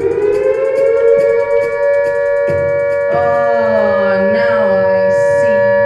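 A siren-like tone that finishes winding up in pitch about a second in and then holds one loud steady note. About halfway through, a wavering, voice-like pitch slides up and down over it.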